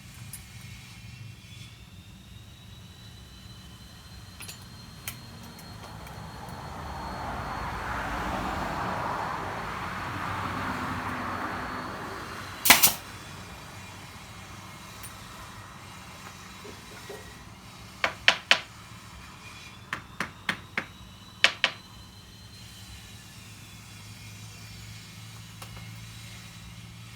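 Sharp knocks on wood, like a hammer or mallet tapping bed parts: one loud knock near the middle, then about nine quick taps in three groups. A rushing noise swells and fades before the first knock, over a steady low hum.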